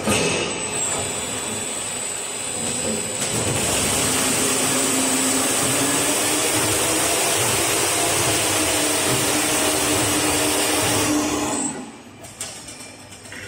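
A 4ft spindleless veneer peeling lathe running, its roller drives turning a log against the knife and peeling it into a continuous veneer sheet. It makes a loud, steady mechanical noise with a high whine, gets louder about three seconds in, and drops away near the end as the peel finishes.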